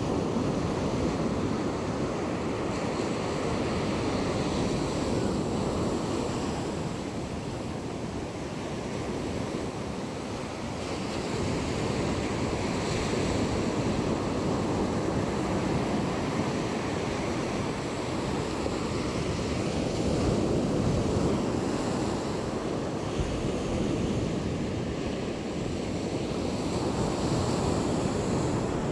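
Ocean surf breaking and washing up a sandy beach, a steady rush that swells and eases every several seconds.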